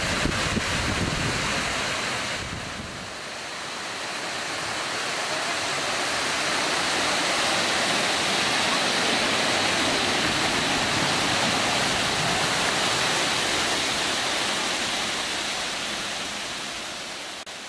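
Water pouring from ornamental waterfall fountains and splashing into their pools: a steady rushing hiss that dips briefly about three seconds in.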